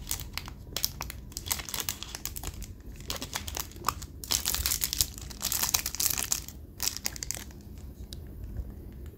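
Packaging crinkling and rustling as it is handled, with many small clicks and taps; busiest from about four to six and a half seconds in.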